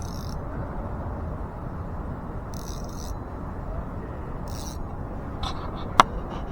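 Steady low outdoor background rumble, with three short high-pitched whirring sounds and a single sharp click near the end.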